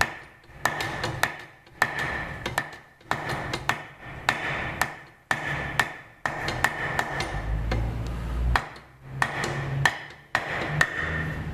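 Repeated sharp knocks with a short metallic ring, coming in bunches: the drill press chuck being knocked home onto its tapered arbor against a block of wood.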